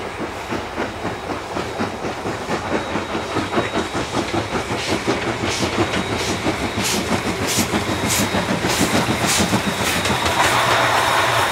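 Train wheels clacking over rail joints in a steady rhythm that grows louder as the C57 1 steam locomotive rolls slowly past, with sharp clicks from about halfway through. Near the end a strong hiss of steam comes from the locomotive.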